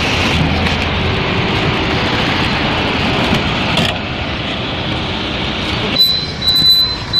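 Steady outdoor road and traffic noise. About six seconds in, a steady high-pitched electronic tone starts and continues.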